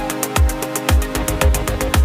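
Electronic dance music with a steady four-on-the-floor beat: a deep kick drum about twice a second under fast, even hi-hat ticks and a sustained synth chord.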